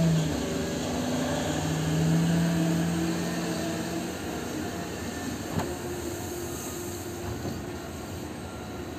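Liebherr R9200 hydraulic mining excavator's diesel power and hydraulics working as it swings and moves its bucket: a steady deep machine drone with a low hum that fades after about four seconds. A single sharp knock comes about halfway through.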